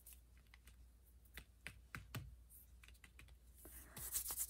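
Faint, scattered small clicks and taps of cardstock and paper pieces being handled on a cutting mat, with a short papery rustle about four seconds in.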